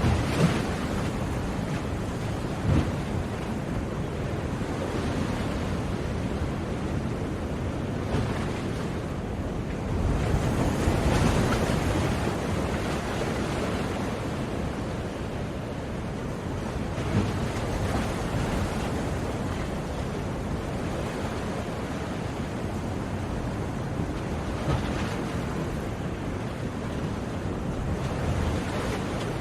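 Ocean surf: waves breaking and washing up the shore in a continuous rush, with one wave swelling louder about ten seconds in and a few short, sharper peaks.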